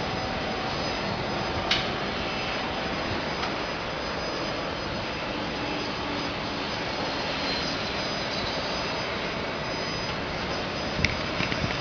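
Steady roar of distant jet airliner engines as an airliner lands, with a faint whine fading out in the first few seconds. A sharp click sounds about two seconds in, and a few more near the end.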